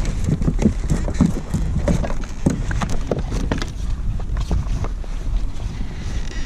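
Irregular knocks and clatter on a kayak as a just-caught sheepshead is handled to be measured, over wind rumbling on the microphone.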